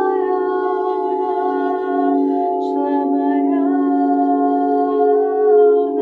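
Singing bowls ringing in a steady sustained drone, with a woman's voice humming long held notes over them that step to a new pitch every second or so.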